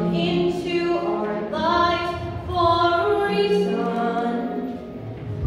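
Two girls singing a duet into microphones, amplified through a PA speaker, holding long notes with their voices sometimes in harmony.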